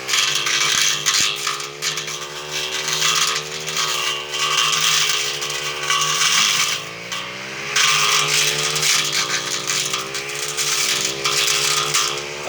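An engine running steadily, its pitch sagging and picking up again a few times (around six and nine seconds in), over a constant rattling hiss.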